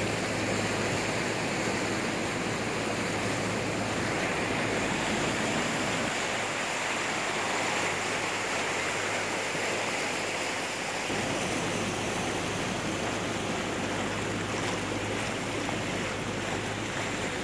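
Muddy floodwater rushing in a steady, churning torrent along a road edge.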